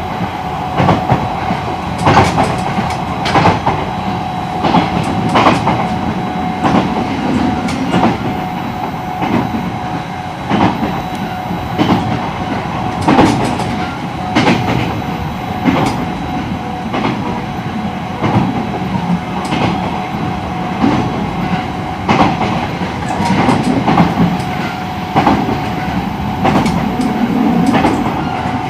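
Running sound of an E129 series electric train's motor car (Toyo IGBT inverter) cruising at steady speed: a steady rumble with a constant high whine, and the wheels clicking over rail joints at irregular intervals.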